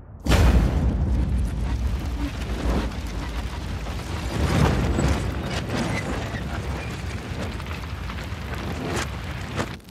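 Caravan exploding as alcohol vapour from a leaking still ignites: a sudden loud blast about a third of a second in, then a long low rumble of the fireball that swells again around the middle and near the end, and cuts off just before the end.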